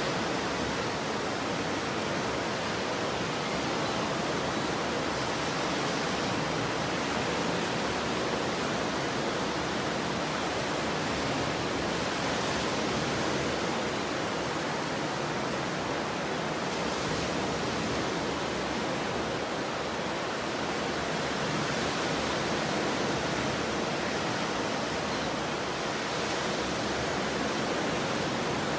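Ocean surf: a steady, even wash of breaking waves, swelling slightly every five seconds or so.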